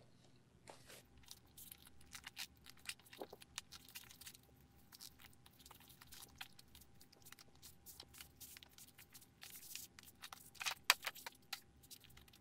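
Printed cardboard sleeve being slid off a cardboard box: a run of short scrapes and rustles of card rubbing on card, with a louder cluster near the end.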